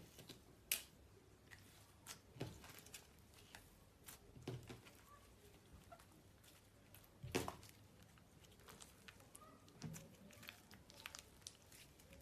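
Slime being handled and pressed, giving faint, irregular sticky clicks and small pops, with a couple of sharper pops about a second in and past the middle.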